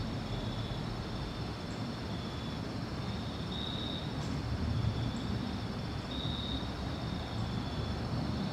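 Insects trilling steadily, with a louder call that comes back every two to three seconds, over a low rumble.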